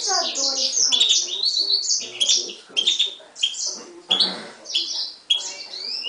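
Himalayan goldfinch × canary mule singing a fast, continuous song of chirps, twitters and short trills, opening with a run of notes sliding down in pitch.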